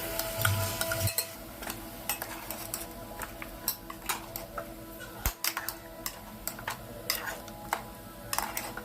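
A metal spoon clinking and scraping against a cooking pot in short, irregular taps while chicken curry is stirred.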